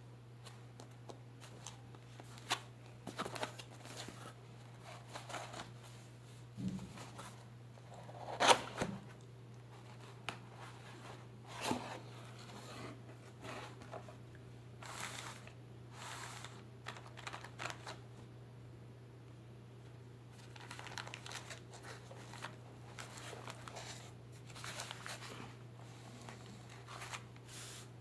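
Product packaging being handled and opened by hand: irregular rustling, crinkling and tearing of wrapping, with a few sharp knocks, the loudest about eight and a half seconds in. A steady low hum runs underneath.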